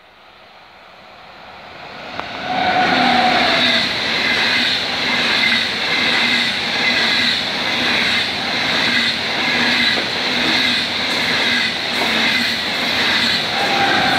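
ICE high-speed train passing close by at speed. It grows louder for the first two and a half seconds, then comes a loud rush of wheels on rail with an even pulse about once a second as the cars' wheelsets go by, with a brief whine as the front end passes and again as the rear end passes.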